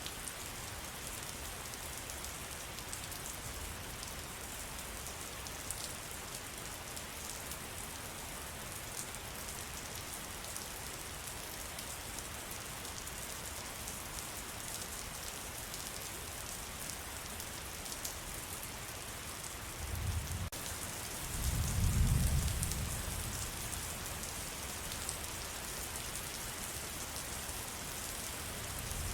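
Steady rain falling on a forest, an even hiss with many separate drops. About two-thirds of the way through, a low rumble swells for a few seconds and fades.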